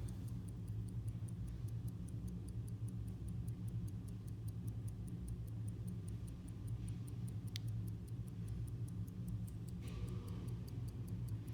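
Swiss quarter-repeater pocket watch's 17-jewel lever movement ticking steadily close up, about five ticks a second.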